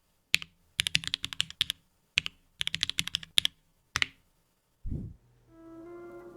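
Typing on a Keychron Q2 mechanical keyboard with Gateron G Pro Brown switches: sharp keystroke clicks in short fast runs separated by brief pauses. About five seconds in there is a single low thud, and music starts near the end.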